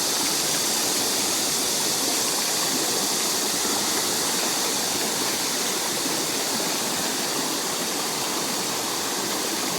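Mountain valley stream rushing over rocks, a steady, unbroken hiss of running water; the stream is running full after rain.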